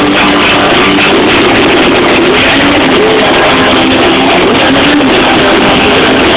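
Rock band playing live, electric guitars over drums, loud and with little change in level.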